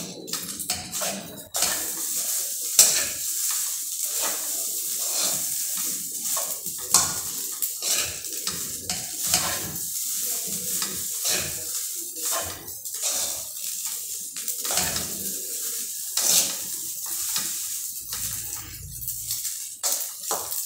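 Spatula stirring and turning rice in a stainless steel frying pan, with repeated short scrapes and knocks against the pan over the steady sizzle of the rice frying in oil.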